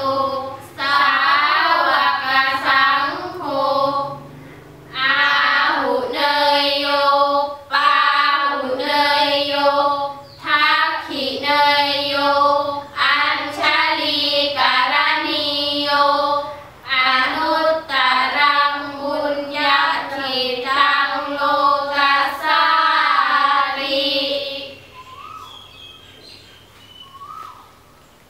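Girls' voices chanting sarabhanya in unison, the melodic Thai Buddhist verse recitation, in sung phrases of a second or two with short breaths between. The chant stops a few seconds before the end.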